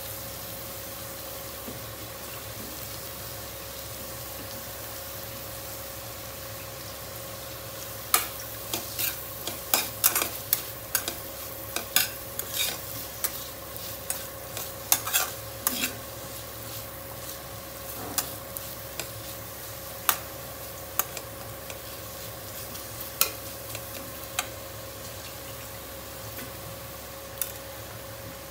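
A metal spatula stirring and scraping masala in a nonstick kadai, with sharp clicks and taps against the pan that come thick and fast for several seconds and then grow sparser. Under it, the masala keeps sizzling steadily as it fries.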